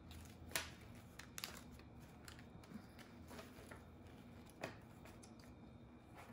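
Faint, scattered rustles and flicks of paper banknotes being leafed through by hand while cash is counted, about half a dozen soft papery snaps spread across the few seconds.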